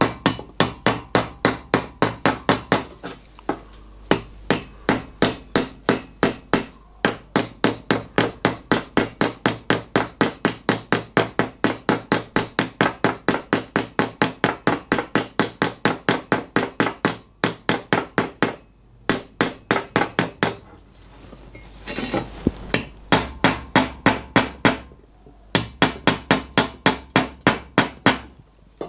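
Hammer tapping on metal in quick, even runs of several blows a second, with short pauses between runs, as a machined sleeve is driven and shaped into the thin tube of an EGR cooler.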